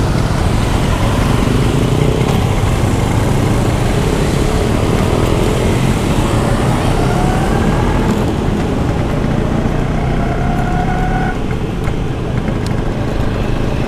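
Vintage Vespa Sprint two-stroke scooter running under way through city traffic, over a steady low rumble. Its engine note rises as it speeds up about halfway through.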